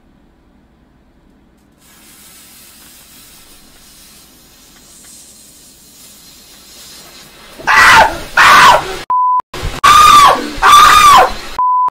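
A faint hiss that slowly builds, then from about eight seconds in loud screaming, cut by a steady single-pitched censor bleep that switches on and off several times.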